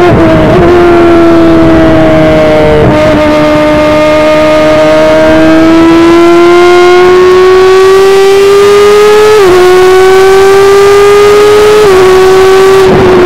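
F1000 formula car's 1000 cc motorcycle-derived engine at high revs, recorded onboard. Its pitch dips about three seconds in, then climbs slowly as the car accelerates, with quick upshifts about nine and a half and twelve seconds in.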